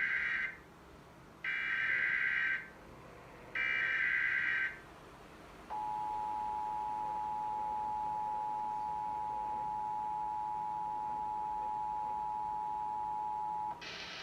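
Emergency Alert System signal: three short screeches of digital data tones (the SAME header), about two seconds apart. They are followed by the steady two-tone EAS attention signal, held for about eight seconds and cut off sharply near the end. It marks the start of a relayed alert, here a tornado warning.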